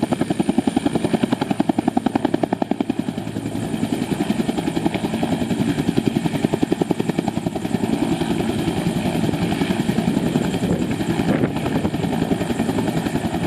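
Helicopter rotor chopping close by, a rapid, even beat of blade pulses that runs on steadily.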